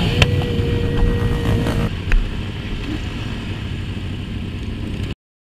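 Motorcycle engines and low wind rumble on a rider's helmet camera during a slow group ride. A steady held tone sounds for under two seconds early on, and the sound cuts off abruptly near the end.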